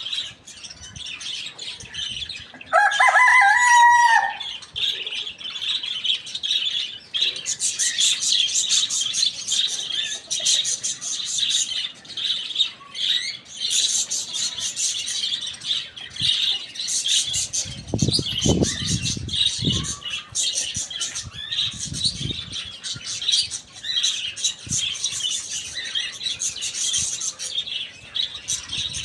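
Many small birds chirping continuously, with one loud crow from a rooster about three seconds in. Low thumping for a couple of seconds a little past the middle.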